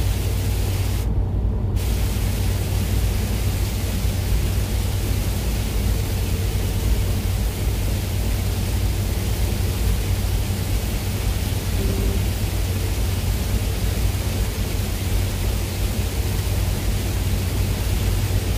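Steady road and engine drone inside a moving vehicle's cab, with an even hiss over it. The hiss drops out briefly about a second in.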